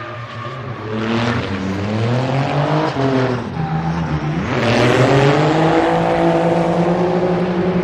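Drift car engine revving hard, climbing, dipping briefly and climbing again to a high held rev, with tyre squeal and skidding as the car slides.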